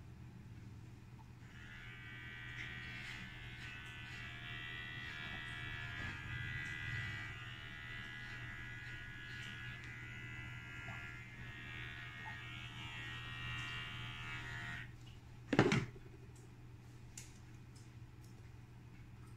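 Electric hair clipper buzzing steadily as it trims short hair at the nape. It starts about a second and a half in and stops about fifteen seconds in, followed at once by a single sharp knock.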